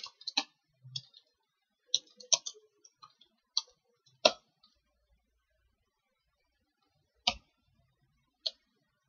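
Computer keyboard keys clicking as commands are typed, faint and irregular: a quick run of keystrokes in the first few seconds, then two single clicks near the end.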